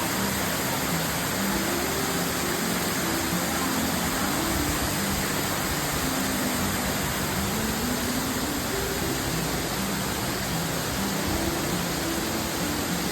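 Amicalola Falls waterfall rushing: a steady, even sound of falling water with no breaks.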